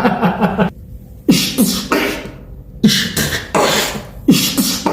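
Vocal beatboxing: a run of about five mouth-made percussive hits, each a sharp attack trailing into a breathy hiss, over a low pulsing beat.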